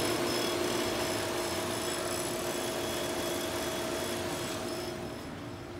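Pool pump motor running, a steady hum with a constant whine over it, easing off a little near the end.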